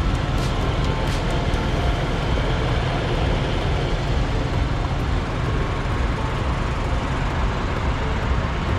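Diesel fuel running fast through a high-flow truck-stop pump nozzle into a pickup's tank, over a steady low rumble from idling semi trucks.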